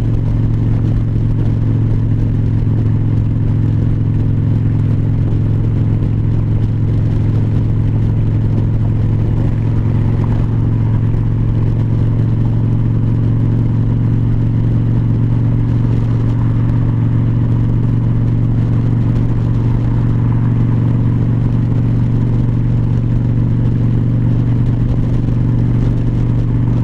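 2004 Harley-Davidson Dyna Wide Glide's Twin Cam 88 V-twin running steadily at highway cruising speed, a constant low drone, with wind and road noise rushing past.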